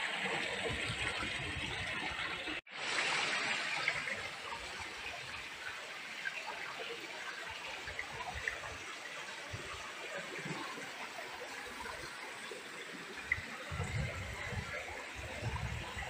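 Shallow mountain stream running and trickling over rocks, a steady rushing hiss; the stream is low, partly dried up. The sound drops out for an instant about three seconds in, and a few low thumps come near the end.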